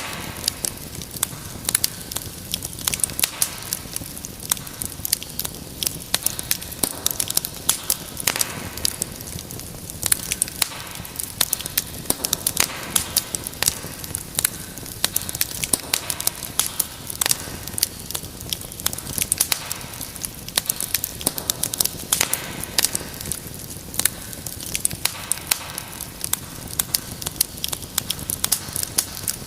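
Wood fire crackling steadily: many irregular sharp pops and snaps over a soft hiss of the flames.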